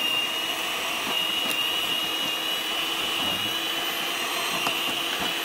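Handheld electric mixer running steadily with a high motor whine, its twin beaters whisking cream and condensed milk in a glass bowl; the cream is still very stiff from the freezer.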